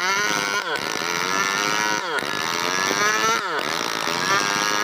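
Stihl 070 two-stroke chainsaw, fitted with a nearly worn-out chain, running while cutting wood: its engine note drops sharply and climbs back about every one and a half seconds, three times.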